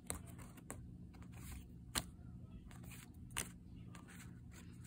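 Yu-Gi-Oh! trading cards being flipped through by hand: soft sliding with a few short, sharp card clicks, the clearest about two seconds in and again about three and a half seconds in.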